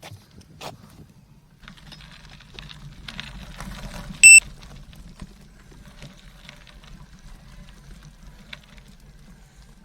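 Tandem bicycle rolling over a rough trail: a low rumble of tyres and wind with scattered rattles and clicks. About four seconds in, a single short, loud electronic beep.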